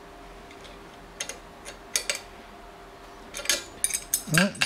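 Sparse metallic clicks and clinks of steel parts of a drill-sharpening jig being handled and adjusted, a few single ticks at first and a quick cluster of them near the end.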